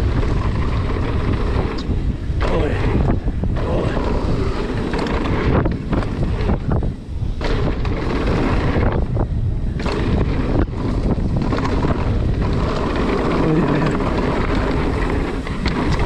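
Wind rushing over a mountain-bike rider's camera microphone together with the rumble and rattle of the bike on a dirt downhill trail. Several times the rush drops away briefly before building again.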